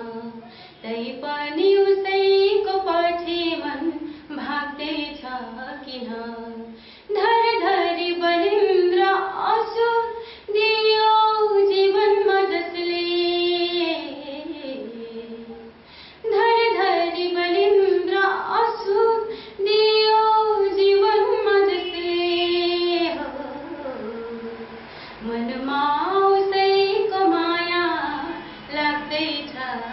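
A woman singing a sad Nepali song unaccompanied, in phrases of long held notes with short breaks for breath between them.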